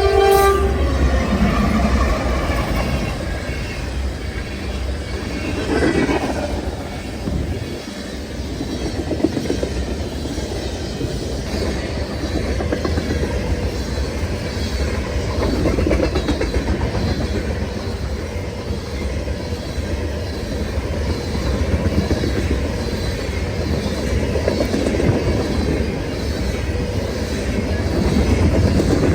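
A train passing close by: its horn cuts off just after the start, then a steady rumble of cars rolling past with an even clickety-clack over the rail joints.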